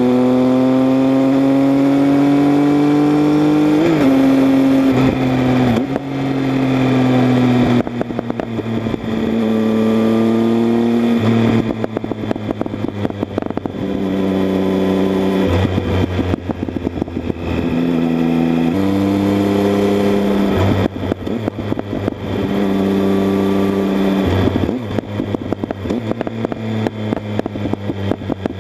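Triumph Speed Triple 1050's three-cylinder engine through an Arrow aftermarket exhaust, ridden on the road: the loud exhaust note climbs steadily under throttle for the first few seconds, then drops and climbs again in repeated steps as the rider shifts gears and rolls the throttle on and off.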